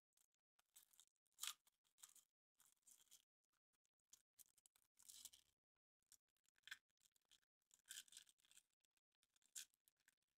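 Faint rustling and crinkling of a Kinder Surprise egg's wrapping as it is handled and torn open, in short, irregular bursts.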